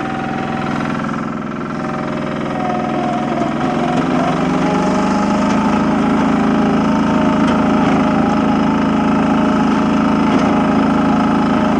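Compact yard loader's engine running as the machine drives along, its speed rising over the first few seconds and then holding steady.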